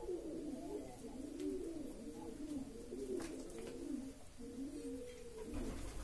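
Pigeons cooing, a continuous run of overlapping low, warbling coos, with a few faint clicks.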